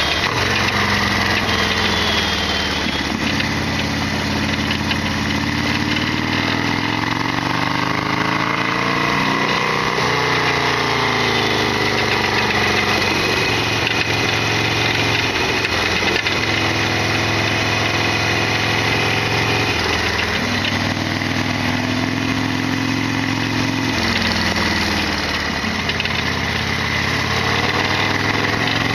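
Harley-Davidson Sportster XL1200's air-cooled V-twin engine running under way, its pitch climbing as it pulls through a gear and dropping sharply at each shift, several times over. A steady high tone runs alongside throughout.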